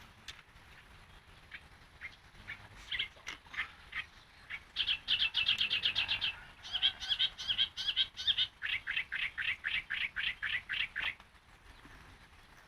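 Yellow-vented bulbul (trucukan) calling: a few scattered notes build into a fast, chattering run of repeated notes for about six seconds, then stop.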